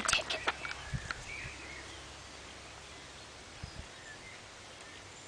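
A quick cluster of short sharp clicks and scrapes in the first second, then a quiet outdoor background with a few faint bird chirps.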